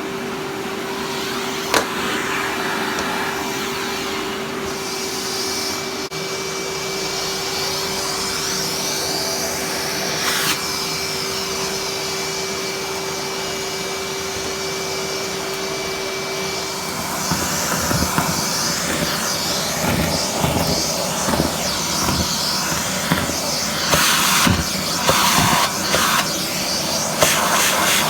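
Vacuum cleaner running steadily, sucking up small piles of debris. About two-thirds of the way through, the steady hum gives way to uneven rattling and knocks.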